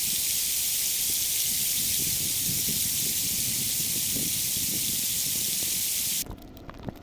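A steady hissing noise from a sound-effect library, played sped up, with its energy high up and a faint crackle underneath. It cuts off suddenly about six seconds in, leaving a much quieter stretch.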